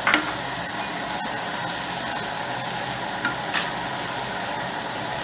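Chicken with mushrooms, green pepper and coriander sizzling in a hot pan, a steady frying hiss, while a utensil stirs it and clinks against the pan, once just at the start and again about three and a half seconds in.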